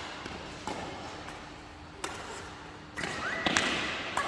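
Shuttlecock rally: a sharp hit on the shuttlecock about every second or so, six in all, over a steady hiss of rain.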